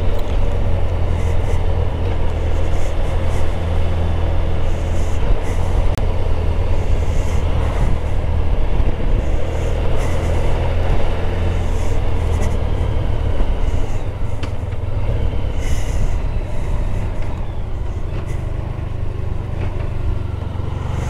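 Motorcycle running along at a steady pace, its low engine hum held steady under wind and road rush.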